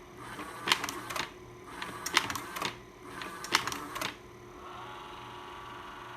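Vivitar carousel slide projector changing slides three times by remote, each change a short mechanical clatter with sharp clicks, followed by a steady motor whine for about two seconds.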